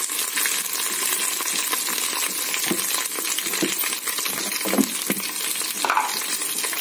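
Sliced onions, bay leaves and green chillies frying in oil in a metal pot: a steady sizzle, with the spatula scraping and knocking against the pot a few times as it stirs.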